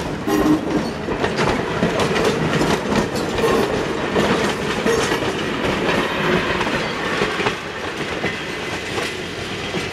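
Heritage train cars (a steel passenger coach, an open car and a wooden-bodied caboose) rolling past close by at low speed, wheels clicking over the rail joints with a steady rumble. The sound eases a little near the end as the caboose draws away.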